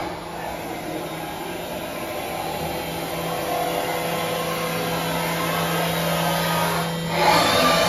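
Haas VM-6 vertical machining centre running with its spindle at about 10,000 rpm, a steady low hum, while its table moves on rapid traverse. A louder rushing noise swells near the end.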